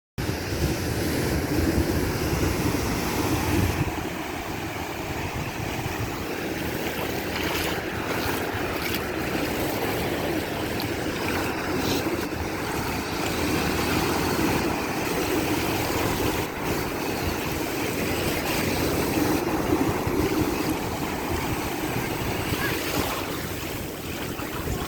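Steady wind and water noise, with wind buffeting the microphone in low gusty rumbles.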